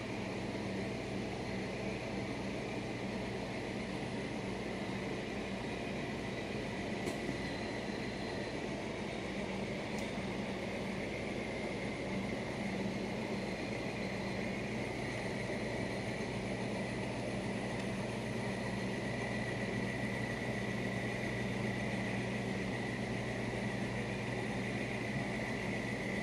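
Steady machine hum under a constant hiss, with a faint high whine, and two faint ticks a few seconds apart in the first half.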